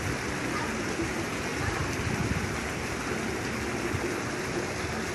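Steady rushing water noise at a swimming pool.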